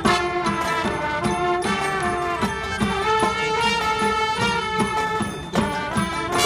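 High school marching band playing: held chords over a steady beat of drum hits.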